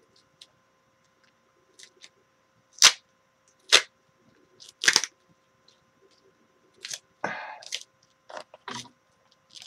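Sharp clicks and snaps from hand tools and wiring being handled at a workbench. Three loud snaps come about a second apart a few seconds in, then a short scrape and lighter clicks follow.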